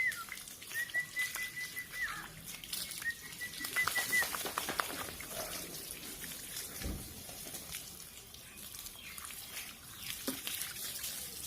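Dog whining in three long, high, steady whines in the first few seconds, then scattered clicks and rustling. The dog dislikes being bathed.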